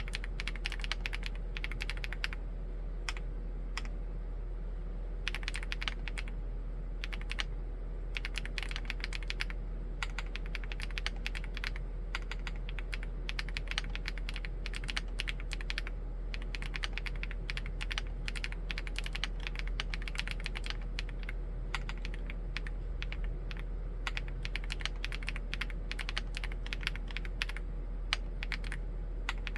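Typing on a Chilkey ND75 75% mechanical keyboard with Gateron EF switches: fast runs of keystrokes with a few short pauses, about 3 to 5 seconds in and around 14 to 16 seconds in. A faint steady hum sits underneath.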